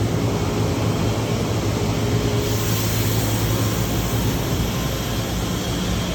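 Steady machine-shop din of machining equipment running, with a low hum underneath. From about two and a half seconds in, a hiss rises in the upper range.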